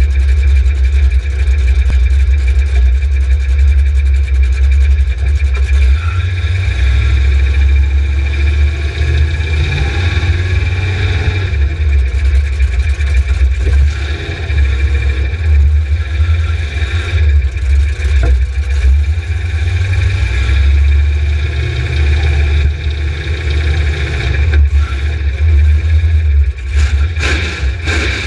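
Mud-drag vehicle's engine running at idle close to the microphone, a loud steady low drone with small rises and falls in revs. A few sharp knocks come near the end.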